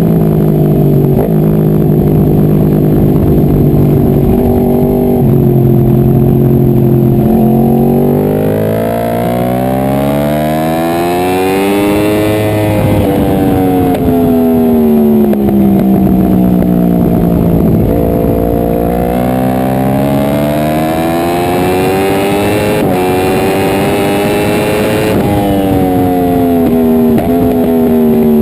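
Sport bike's inline-four engine at track speed: for the first several seconds the pitch holds with a few sudden steps, then it climbs and falls in two long sweeps as the bike accelerates and slows.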